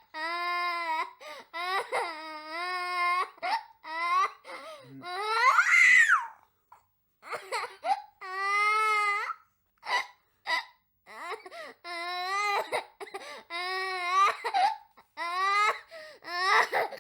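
A young child crying: a string of wavering wails and sobs, each about a second long with short breaks between them, one climbing higher in pitch about six seconds in.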